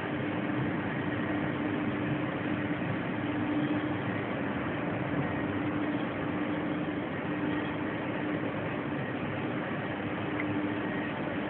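Macchi three-layer blown-film co-extrusion line running in production: a steady machine drone with a constant low tone over an even rushing noise.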